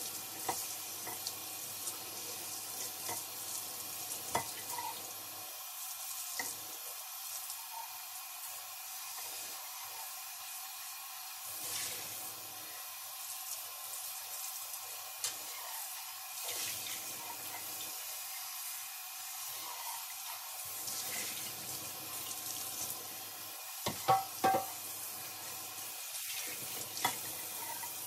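Kitchen tap running steadily into the sink, with dishes clinking now and then and a louder clatter of dishes about 24 seconds in.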